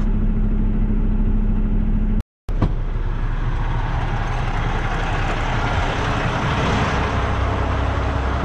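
Semi-truck diesel engine running steadily with a low hum. After a short break about two seconds in, a click, then the engine keeps idling under a louder rushing noise of open air once the cab door is open.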